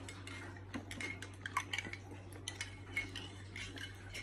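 Metal spoon stirring chocolate coffee in a ceramic mug, clinking against its sides in quick, irregular light taps.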